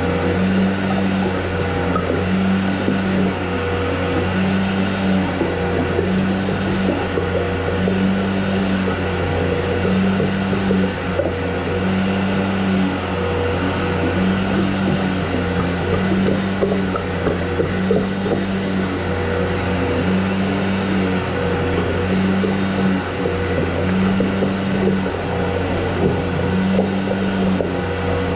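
A motor running steadily, with a low hum and a regular throb about every second and a half.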